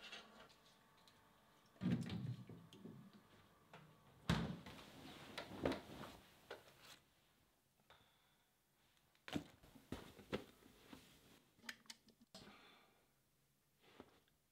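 Quiet domestic foley of someone moving about: a refrigerator door thudding shut about two seconds in, then a few scattered soft knocks and clicks with near-silent stretches between.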